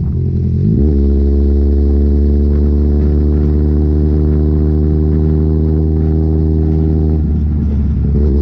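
A vehicle engine running with a steady drone. Its pitch drops and climbs back right at the start and again near the end.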